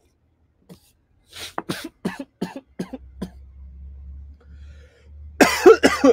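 A man coughing after almost choking on a drink: a run of short coughs, then a louder fit of about three coughs near the end.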